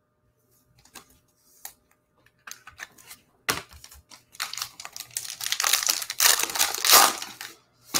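Foil trading card pack wrapper crinkling and tearing as it is ripped open by hand, with a sharp crackle about three and a half seconds in and dense crinkling through the second half. A few faint clicks come first.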